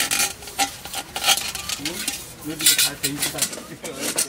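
Aluminium parts of a Trangia camping stove set clinking and clattering as the nested pieces are pulled apart and fitted together: a run of light, irregular metallic knocks and rattles.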